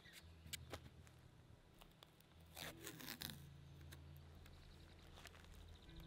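Faint scraping and rustling of sketchbook paper being handled, a few short strokes with the busiest cluster about halfway through. Underneath is a steady low rumble from a vehicle driving nearby.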